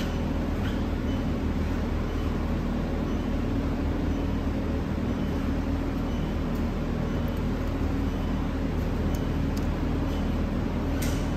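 Steady low mechanical hum of running machinery, with a few faint light clicks near the end as the metal bobbin case is handled.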